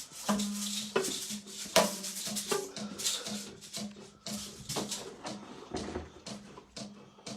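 Homemade percussion instruments made from recycled materials, shaken and struck in an uneven rhythm: sharp rattling hits every half second or so over a steady low hum.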